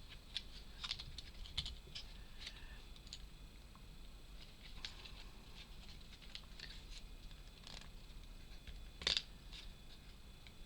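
Small wooden puzzle pieces being handled and pressed into place: scattered light clicks and taps, the loudest a sharp click about nine seconds in.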